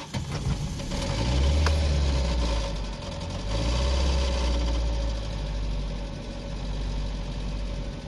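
A 2005 Nissan Sentra engine starts and catches about a second in. Its speed swells, dips about three seconds in, swells again, then settles to a lower idle. This is the unstable idle that the mechanic is almost sure comes from the camshaft timing slipping on the timing chain.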